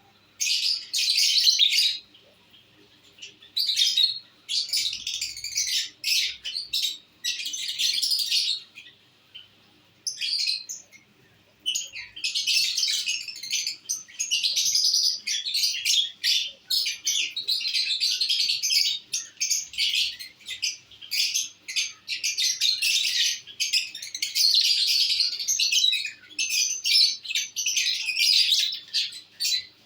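Lovebirds chattering in rapid runs of high-pitched chirps, in bursts broken by short pauses.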